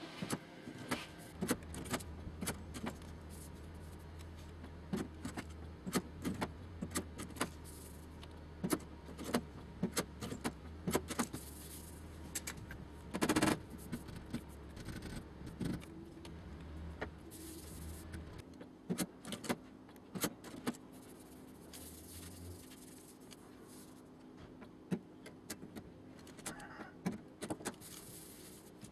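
Irregular light metallic taps and clinks of hand tools working the sheet metal of a car door during panel straightening, over a low hum that stops about two-thirds of the way through.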